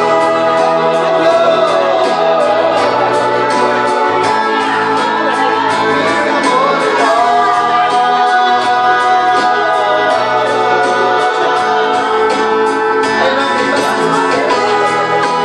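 Karaoke: a man and a woman singing loudly into microphones over a pop backing track with a steady beat.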